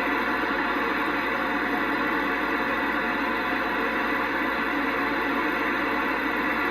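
Steady hiss and static from a CB radio receiver on an open channel, with no voice coming through.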